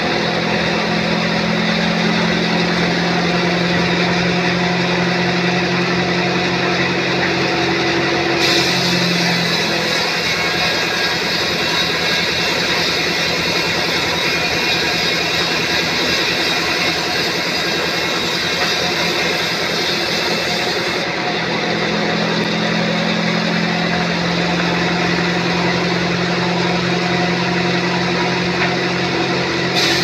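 Sawmill band saw running and cutting lengthwise through a teak log: a loud, steady mechanical roar. A low hum under it fades out about nine seconds in and comes back a little past twenty seconds.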